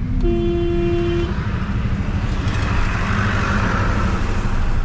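Steady engine and road rumble heard from inside a car in slow city traffic. A vehicle horn honks once for about a second near the start.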